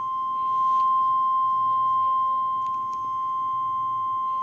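Emergency Alert System attention tone: a single steady, high-pitched tone near 1 kHz held without a break, signalling an incoming hurricane warning broadcast.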